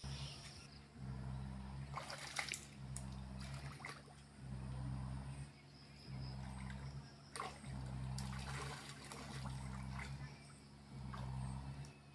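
Shallow muddy water splashing and trickling in irregular bursts as hands work in it, over a low hum that comes and goes.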